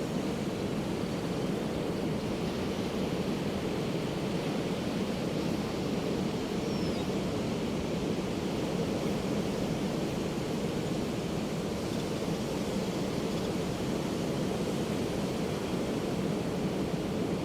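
Ocean surf washing steadily onto a beach, an even rushing noise with no single wave standing out.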